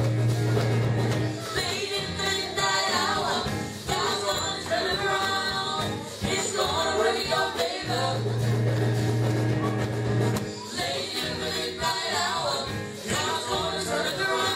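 Gospel song: voices singing over a band, with a long held bass note near the start and again about eight seconds in.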